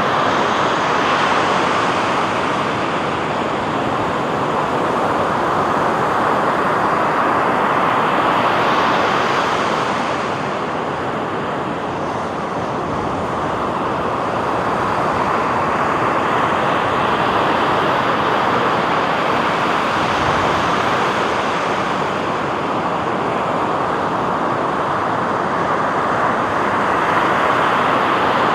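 Surf breaking on a beach: a continuous wash of noise that swells and eases slowly, dipping about halfway through before building again.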